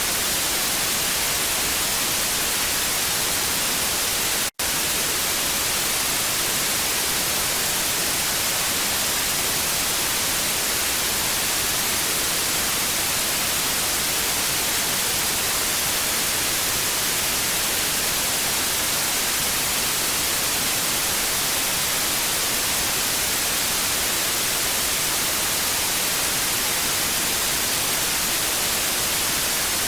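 Television static: a steady, even hiss, brightest in the high frequencies. About four and a half seconds in, it cuts out for a split second.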